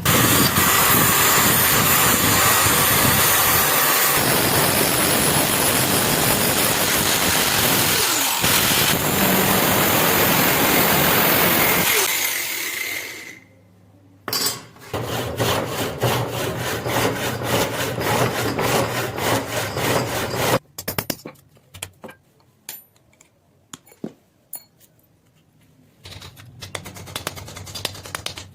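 Workshop power tools working on a rusty knife: a loud steady grinding and sanding noise for about thirteen seconds, then after a short break a rougher stretch with rapid scraping strokes. Past the middle this gives way to a few seconds of scattered taps and clicks, before the tool noise returns near the end.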